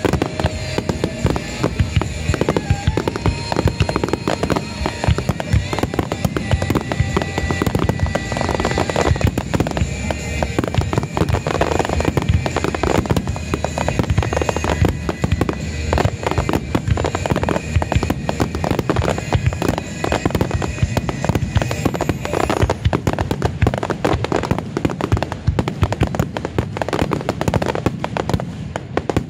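Starmine fireworks finale: a dense, unbroken barrage of shell bursts and crackling, many shells going off together. Music plays from loudspeakers underneath the bangs.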